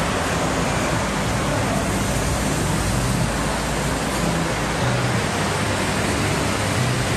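Car wash bay ambience: a steady rushing hiss with a low hum underneath.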